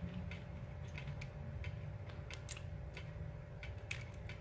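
Small, irregular clicks and ticks of metal parts as the tension arm of an MK8 dual-gear extruder is worked onto its gear shaft, over a faint steady low hum.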